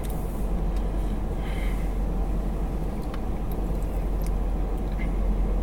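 Steady low rumble of a car idling, heard from inside the cabin, with a few faint small clicks over it.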